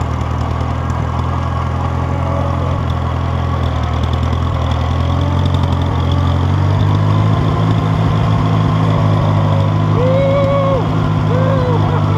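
Small tractor engine running steadily as the tractor drives along, its pitch rising a little about halfway through. Two short wavering higher-pitched sounds come near the end.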